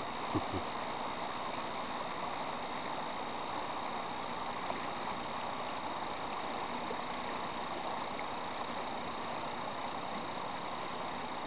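Shallow river rushing steadily over rocks in a rapid. A single short, low thump comes about half a second in.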